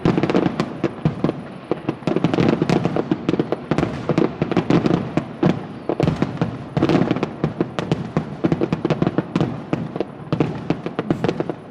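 Fireworks finale: a dense, rapid barrage of shell bursts and crackling bangs, heaviest about two and seven seconds in.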